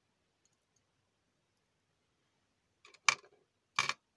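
Metal jewellery clinking in a small ceramic dish: two short, sharp clinks, about three seconds in and again a little under a second later.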